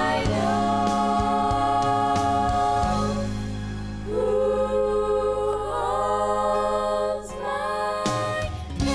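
A group of five women singing a Christian song together in harmony, with long held notes over steady low accompaniment; a new sung phrase starts about four seconds in and again near the end.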